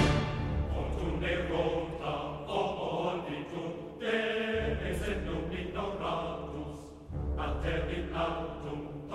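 Soundtrack music: a choir chanting in long phrases, with short breaks about four and seven seconds in.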